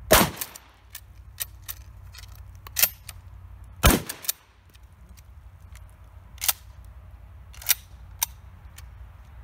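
Two shotgun shots about four seconds apart, each with a short echo, with lighter sharp clicks and clacks between and after them as the gun is handled.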